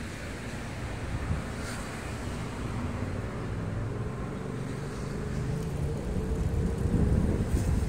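Low rumble of road traffic with wind on the microphone; near the end a vehicle's engine note rises and grows louder.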